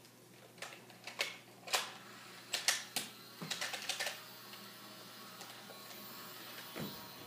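Sharp plastic clicks of a toy Nerf blaster being handled and worked: a few separate clicks, then a quick run of clicks about four seconds in.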